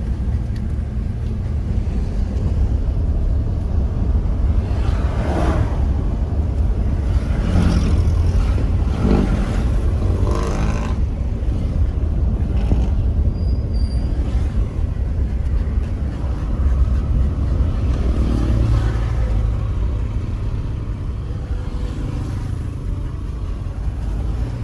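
A steady low rumble, with a few brief louder sounds between about five and eleven seconds in.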